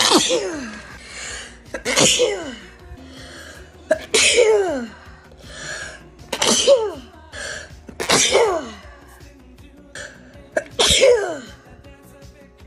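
A person's rapid fit of sneezes, about six in a row roughly two seconds apart, each ending in a loud 'choo' whose pitch slides down, with softer breaths between them.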